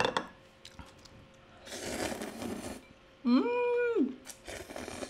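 Thin somen noodles slurped from chopsticks. A breathy rush of air about two seconds in, then a short pitched hum-like tone of under a second as the noodles are drawn in.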